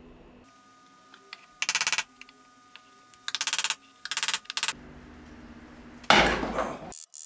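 Hand tool work taking apart a wooden reed organ case: three short bursts of very rapid clicking, like a ratchet screwdriver turning screws, then a louder clatter of wood being handled about six seconds in.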